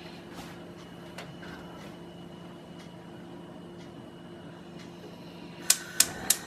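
Gas hob's spark igniter clicking three times in quick succession near the end as a burner knob is turned to light the gas, over a faint steady background hum.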